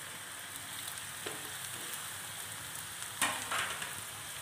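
Oil and ginger-garlic paste sizzling steadily in a frying pan as sliced mushrooms are pushed in by hand, with a louder burst of noise a little past three seconds in.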